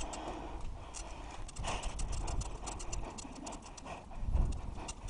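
A bicycle rolling along a paved lane, its frame and mounted camera rattling in quick, irregular clicks, with wind rumbling on the microphone that grows stronger near the end.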